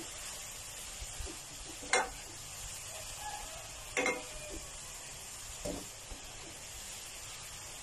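Diced chicken breast simmering in garlic water in a pan, with a steady sizzling hiss. A spatula stirs it and knocks against the pan three times, about two seconds apart.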